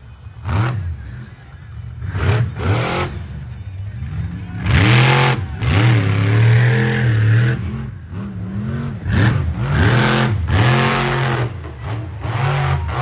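Monster truck engine revving hard in repeated short bursts, with a longer climb and held rev through the middle.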